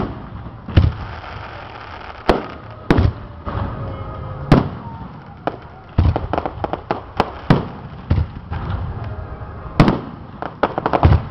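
Aerial fireworks shells bursting with sharp booms every second or two. Two quick runs of crackling bursts come about six seconds in and near the end.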